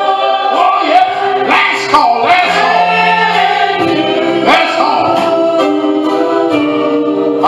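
Church choir singing a slow gospel song, voices holding long notes.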